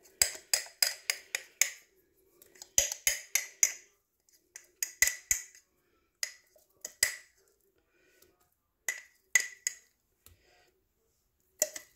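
A metal utensil clinking and scraping against a jar and a stainless steel bowl as sticky sourdough starter is knocked out. It comes as a quick run of sharp clinks, then shorter groups of taps with pauses between them.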